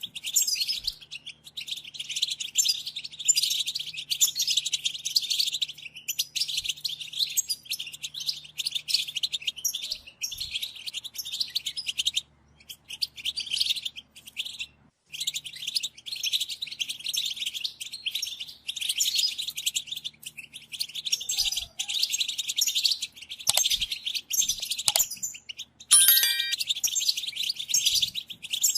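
European goldfinch singing: a fast, continuous high twittering song with a couple of brief pauses, and a short lower note near the end.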